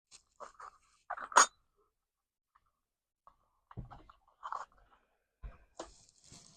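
Scattered sharp clicks and small knocks of metal pins being pushed back into a sheath-forming jig, with one louder click about a second and a half in and a few duller thumps later.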